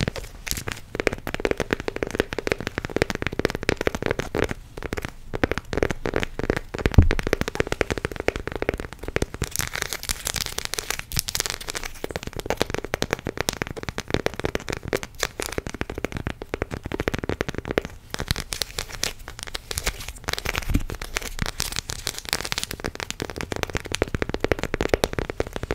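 Close-up crackling and crinkling from a chocolate bar being handled and broken next to the microphone as an ASMR trigger: a dense, unbroken run of small crackles and clicks, with one sharper crack about seven seconds in.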